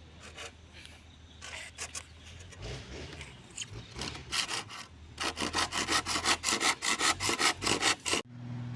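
Hand-sawing bamboo: back-and-forth saw strokes, slow and uneven at first, then quick and regular at about four a second, stopping abruptly near the end.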